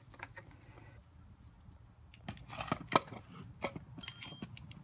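Light clicks and clinks of small metal parts and tools being handled while a small chainsaw is taken apart, with a brief metallic ring about four seconds in.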